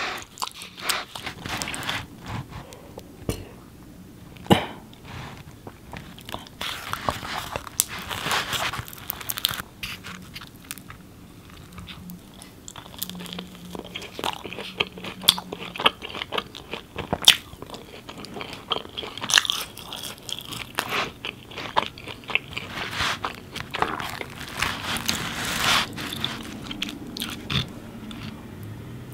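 Close-miked biting and chewing of baked naan, its crisp crust crunching, with many sharp wet mouth clicks.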